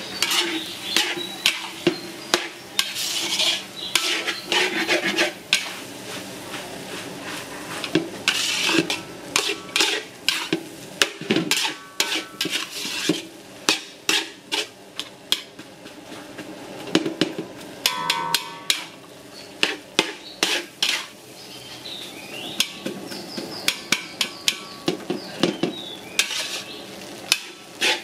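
A metal spatula clanking and scraping against a steel wok, breaking up and turning fried rice with egg and minced meat in quick, irregular strokes.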